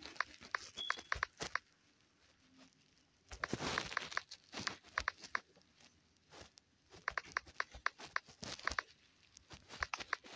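Phone touchscreen keyboard typing: short, sharp clicks in quick runs of several a second with pauses between words, and a couple of brief rustles partway through.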